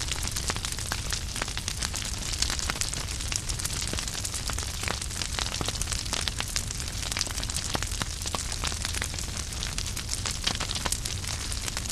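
Wood fire burning in a fireplace: a steady hiss and low rumble of flames with many small, irregular crackles and pops from the burning logs.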